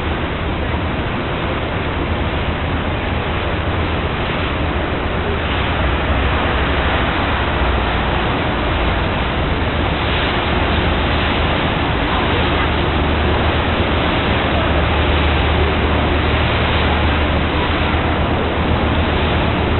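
Steady loud rushing noise on a moving river boat's open deck, wind and water wash, over a low steady drone from the boat's engine.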